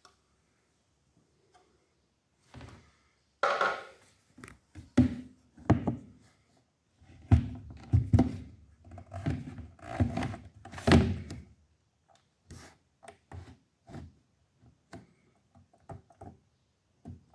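Irregular series of thunks and clicks from pressing and tapping at a laptop's stuck touchpad button, heavier thuds in the first half and lighter clicks later. The right touchpad button is stuck down.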